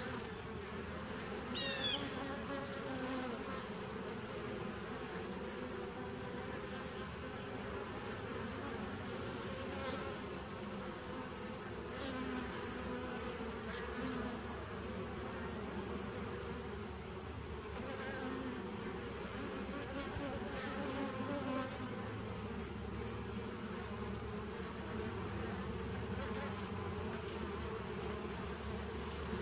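Honeybees buzzing at the entrance of a nuc hive: a steady hum of the colony, with single bees flying close past every few seconds in short wavering drones.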